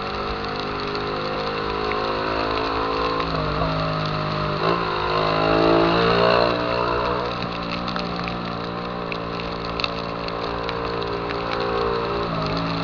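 Honda Titan 150 single-cylinder engine running through a Viúva Negra aftermarket exhaust while riding. The pitch dips briefly at gear changes about three and five seconds in, rises as it revs up just after, holds steady, and dips again at another shift near the end.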